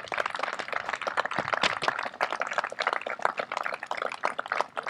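Audience applauding, many hands clapping at once, steadily.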